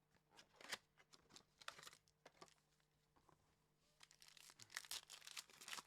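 Faint tearing and crinkling of a trading-card pack wrapper being ripped open by hand, in short crackly bursts with quiet gaps between.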